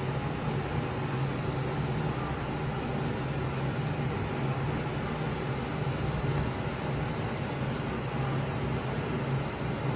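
Steady low machine hum over an even rushing noise, unchanging throughout; the knife strokes through the meat make no distinct sound above it.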